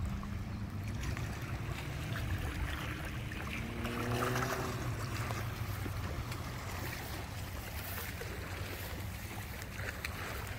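Wind rumbling on an outdoor microphone. A faint hum with a few steady tones swells and fades about three to five seconds in.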